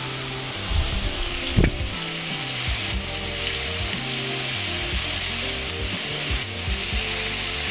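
Stir-fry of onions, carrots and green beans sizzling steadily in a hot oiled pan as slices of raw ribeye beef are laid in with tongs, with one sharp click about one and a half seconds in. Low background music runs underneath.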